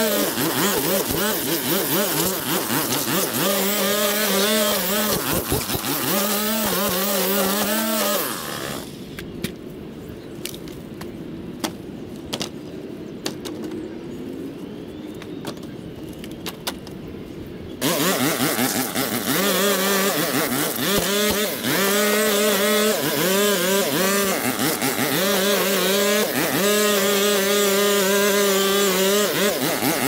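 Small petrol engine of lawn equipment running, its pitch rising and falling with the throttle. About a third of the way in the sound turns muffled and quieter, with scattered clicks, for about nine seconds; then the engine comes back at full level.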